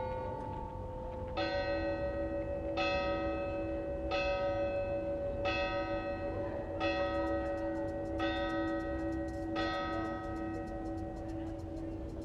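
A church tower bell tolling, seven strokes about a second and a half apart. Each stroke rings on into the next over a steady hum of the bell.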